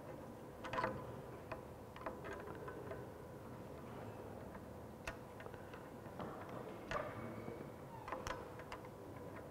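Irregular small metallic clicks and scrapes of a screwdriver working against a centrifugal pump's metal casing and the pipe fitting at its outlet, over a faint steady hum.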